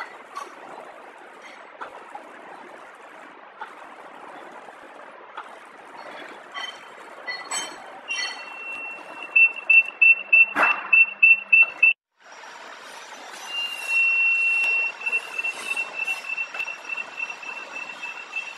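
Horizontal flow-wrap packing machine running: a steady mechanical hiss with scattered clicks and one sharp knock. About halfway through, a high tone joins and pulses about three or four times a second, cutting out briefly and then continuing.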